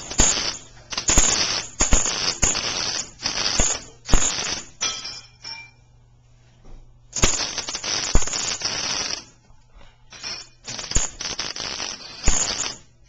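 Arc welder tack-welding thin bike-frame tubing: the arc crackles in a series of short bursts, each starting with a sharp snap, with a pause of a few seconds in the middle, over a steady low electrical hum.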